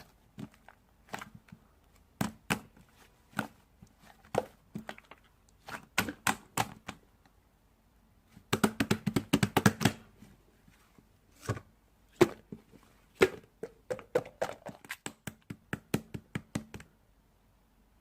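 Irregular sharp taps and knocks on hard objects, with a rapid flurry of them about halfway through.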